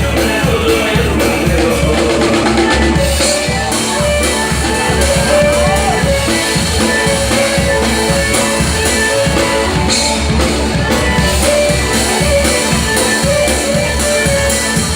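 A live band playing loud amplified music: a drum kit keeping a steady beat under guitar.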